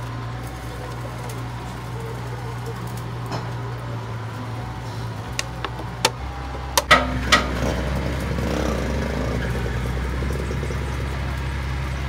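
Steady low hum of machinery running in the workshop, changing pitch about seven seconds in. A few sharp clicks and knocks between about five and seven seconds in, from parts being handled on the metal tray.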